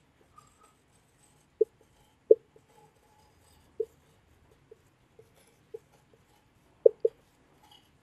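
Whiteboard marker squeaking on the board as a word is written, in short, irregularly spaced squeaks, with two close together near the end.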